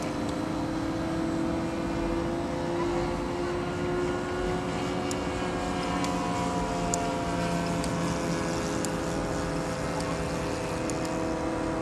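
ASP 91AR two-stroke glow engine of a radio-controlled Groovy 50 3D aerobatic model plane running in flight, its pitch slowly rising and falling as the plane manoeuvres.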